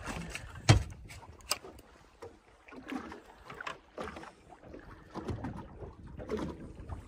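Knocks and bumps on a small fishing boat. A sharp thump about a second in is the loudest, followed by a lighter knock and scattered clicks and rustling.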